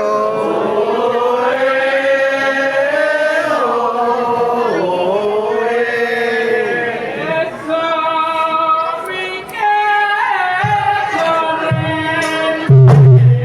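A long sung chant, the pitch wavering and gliding up and down in drawn-out phrases. About eleven seconds in, deep drum strokes start, with a loud drum entry near the end that opens the accompaniment for the mask dance.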